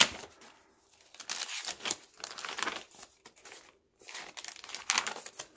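Paper rustling as the thick, coffee-dyed pages of a handmade journal are turned and handled, in several separate bursts with the longest near the end.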